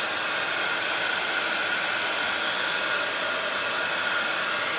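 Craft heat gun running steadily, blowing hot air to dry wet mica powder and soft gel paint: an even rush of air with a faint steady whine in it.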